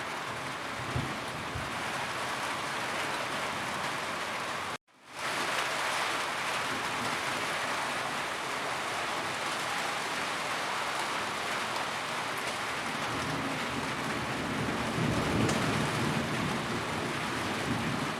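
Steady heavy rain falling on a roof, an even hiss of drops. A low rumble of thunder swells up near the end. About five seconds in, the sound cuts out completely for a fraction of a second.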